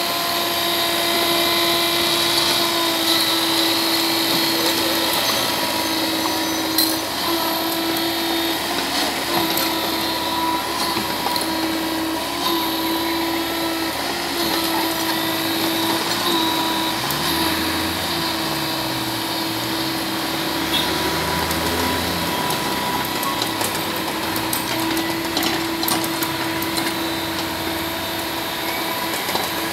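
IHI mini excavator's diesel engine running steadily with a high hydraulic whine while the bucket and blade work loose soil. The pitch dips and recovers a few times about two-thirds of the way through, and there is a sharp knock about seven seconds in.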